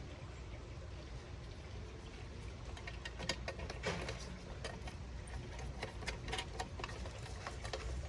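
Outdoor wall lantern being fitted onto its wall mount: a run of small clicks and scrapes of metal parts being handled, starting about three seconds in, over a low steady rumble.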